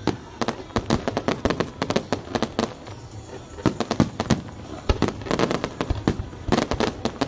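Aerial fireworks display: shells bursting in a rapid, irregular string of bangs and crackles, coming in dense clusters.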